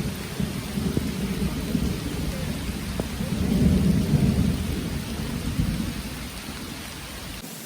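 Rolling thunder rumbling over steady rain, swelling to its loudest about halfway through and then dying away.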